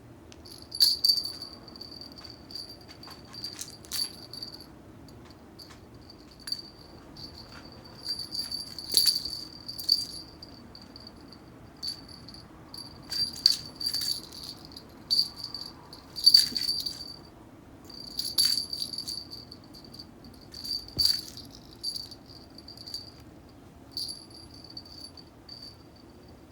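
A cat's bell toy jingling and rattling in irregular bursts as the cat bats and chases it, the bell ringing on between the louder shakes.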